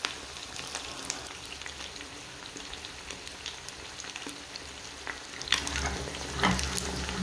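Four eggs frying in a frying pan over medium heat, with a steady sizzle and scattered small crackling pops. The sound grows louder, with a low rumble, about five and a half seconds in.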